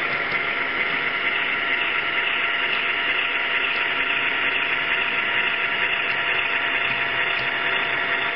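Steady mechanical hiss and hum with a few faint steady tones, even in level throughout.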